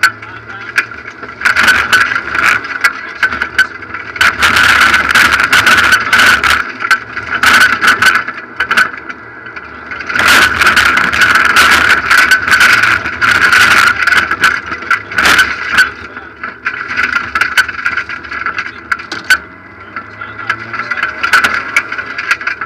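Rally car engine running hard, heard from inside the cabin, while loose gravel and stones clatter against the car's underside in many sharp ticks and knocks. The level rises and falls in stretches, with quieter moments about nine seconds in and again later on.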